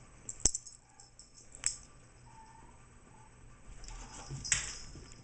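A cat's metal collar tag jingling as she moves, with sharp taps on a wooden floor about half a second in and again after a second and a half. Near the end comes a short, louder scuffle as she dashes off across the floor.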